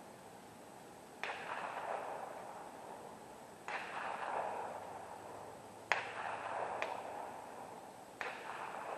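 Four gunshots at a shooting range, spaced about two and a half seconds apart, each followed by a rolling echo that fades over a second or two.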